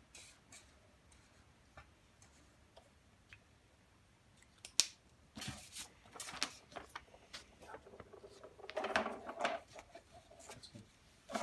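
Plastic felt-tip markers and their caps being handled: a few quiet seconds, then a sharp click about halfway through, followed by scattered clicks and scrapes and a denser stretch of scraping near the end.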